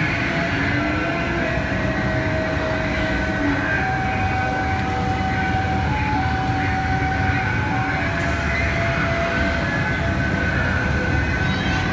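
Coin-operated kiddie ride running: a steady rumble with held electronic tones from its speaker that change pitch every second or two.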